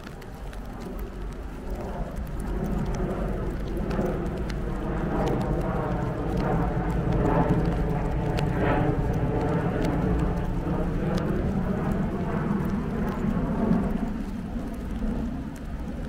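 Rain falling with scattered drop ticks, while an engine swells up over several seconds and fades again near the end. The whole recording plays in reverse.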